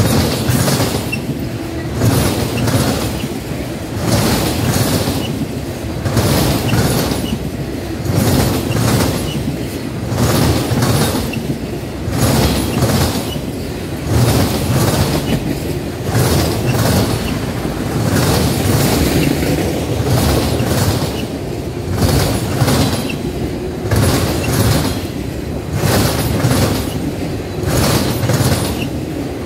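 Freight train of autorack cars rolling past close by: a steady rumble of steel wheels on rail, with a clickety-clack of wheels repeating about every two seconds.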